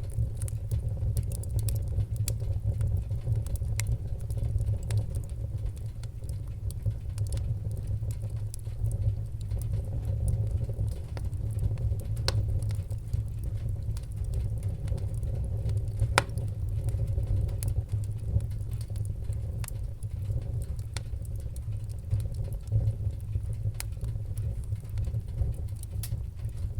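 Fire crackling: scattered small pops and snaps over a steady low rumble of flames, with one louder pop about sixteen seconds in.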